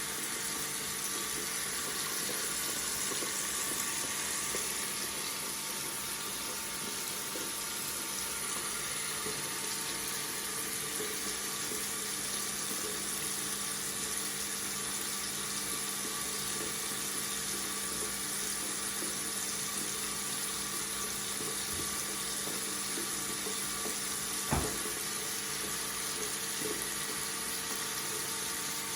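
Water tap running steadily into a sink: an even, continuous splashing hiss. A single sharp click sounds late on.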